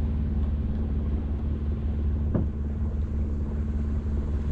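A sailboat's auxiliary engine running steadily under way, a low, even hum.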